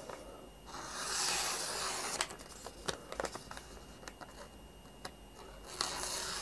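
A sheet of paper being sliced against the freshly sharpened convex edge of a CPR-steel Nessmuk Nordhunter knife. There is a dry hissing slice about a second in, lasting just over a second, and another near the end, with small paper crackles between. This is a paper-cutting test of the edge's sharpness.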